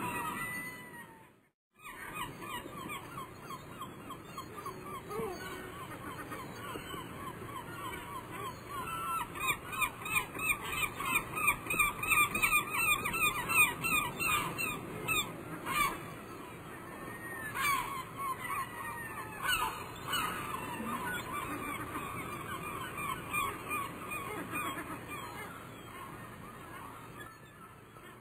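A flock of birds calling, many short calls repeating and overlapping, busiest and loudest about ten to fifteen seconds in. The sound cuts out briefly near the start.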